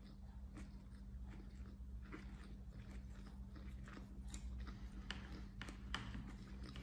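Close-up chewing of a bite of vegan sushi, rice with a green pepper filling: soft, irregular mouth clicks, with a few sharper ones in the second half. A steady low hum runs underneath.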